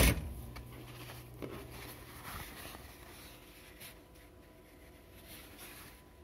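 A Juki 8700 industrial sewing machine stops right at the start. Then comes faint rustling of cotton fabric being handled, with a few light clicks.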